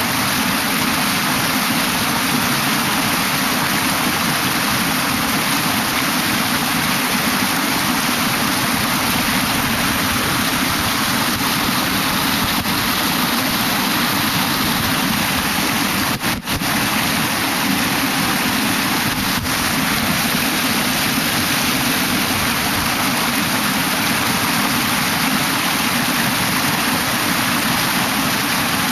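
Mountain stream rushing steadily, with a brief break in the sound about halfway through.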